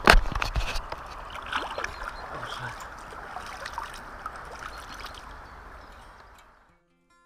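Water splashing at the river's edge as a fish is let go from the hand, loudest in the first second, then smaller splashes and drips as water is flicked off the hands, over a steady rush of flowing river water. The sound fades out shortly before the end.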